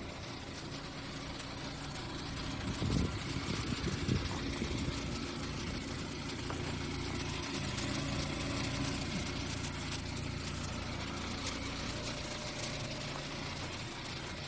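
2017 Chevrolet Impala LS engine idling steadily, with a few short muffled bumps about three to four seconds in.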